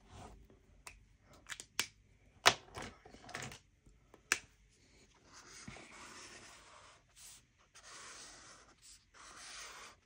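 A few sharp clicks of Crayola felt-tip markers being capped, uncapped and handled. In the second half come several scratchy strokes of a marker tip drawn across paper.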